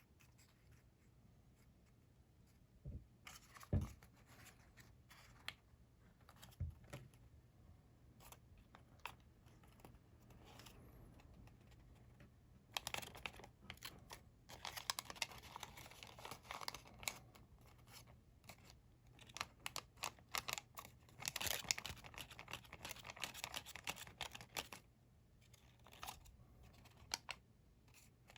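Sheet of colored origami paper being folded and creased by hand: scattered taps and crisp crackles, with two longer spells of rustling in the second half.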